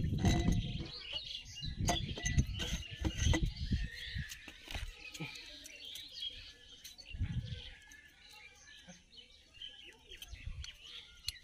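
Small birds chirping on and off in the background, with low dull knocks and rustles from engine parts being handled, heaviest in the first few seconds.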